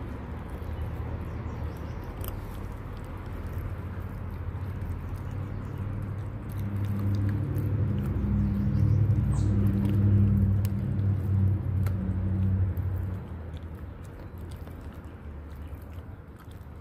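Six-week-old shepherd puppies chewing and biting on a whole raw fish, with scattered small clicks and crunches. A low humming rumble swells for about six seconds in the middle.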